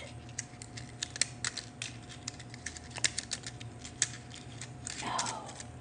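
Rapid, irregular crackles and clicks of an iridescent cellophane crystal rose being handled close to a microphone.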